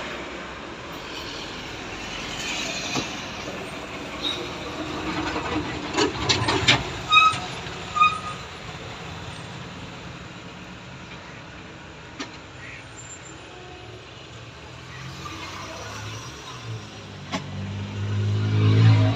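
Vehicle and engine noise with a steady background hum, a few sharp metallic knocks with brief ringing about six to eight seconds in, and a low engine sound swelling near the end.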